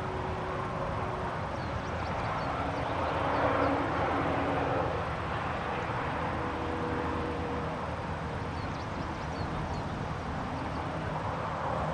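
Countryside ambience: steady wind noise that gusts up about three to four seconds in, with faint high bird chirps twice in the background.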